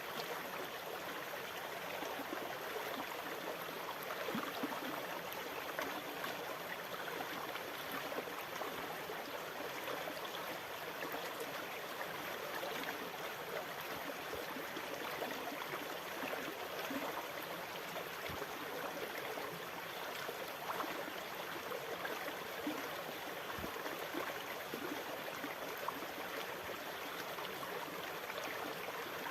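Water running steadily with a fine trickling and gurgling, even in level without the rise and fall of breaking waves.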